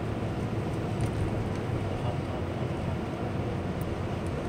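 Steady car road and engine noise heard from inside the cabin while driving.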